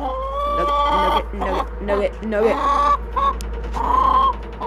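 Chickens calling: one long held call of about a second at the start, then a run of shorter clucks and squawks from the flock.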